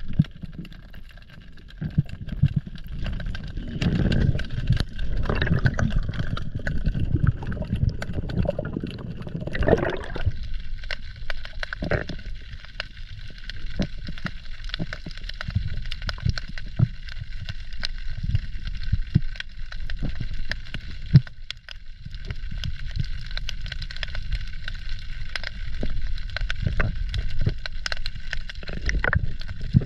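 Underwater sound heard through a camera's waterproof housing as a spearfisher swims: a muffled low rumble of water moving past, with many scattered clicks and knocks. The rumble is louder and fuller for the first ten seconds or so, then settles.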